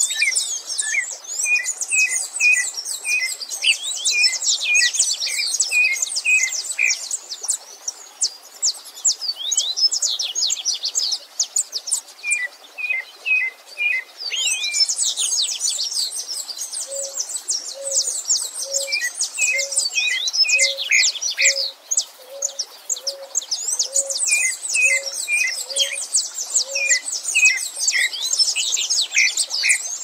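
A mixed chorus of several bird species singing, with dense high chirps and rapid trills and runs of short repeated notes; it thins out twice and picks up again. Through the middle a lower-voiced bird gives a series of soft, evenly spaced notes, about one and a half a second.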